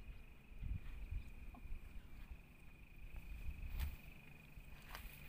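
Insects singing from the surrounding forest: one steady, high-pitched trill held at a single pitch, over a low rumble on the microphone, with a couple of faint clicks near the end.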